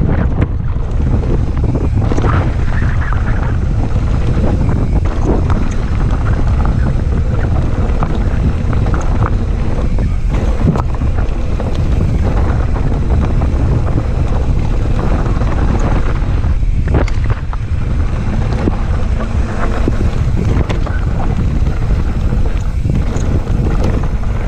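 Mountain bike ridden fast down a dry, rocky gravel trail: heavy wind buffeting the microphone, with tyres crunching over loose stones and frequent clicks and rattles from the bike. There are a few heavier knocks as it lands jumps.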